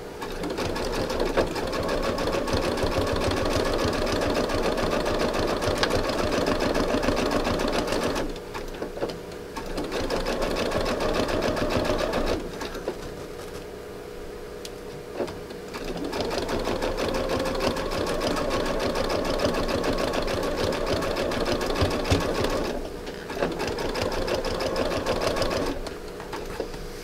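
Sewing machine running a zigzag stitch through fabric-wrapped rope coils. It runs in four stretches, stopping briefly three times: shortly after 8 s, for a few seconds around 13 s, and briefly near 23 s.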